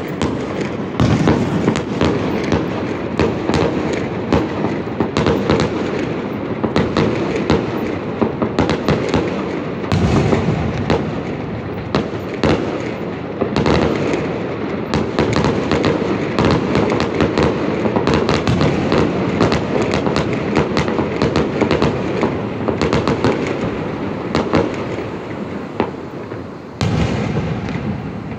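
A fireworks display going off in rapid succession: a continuous barrage of pops, bangs and crackles, with heavier bursts of bangs about a second in, around ten seconds, and shortly before the end.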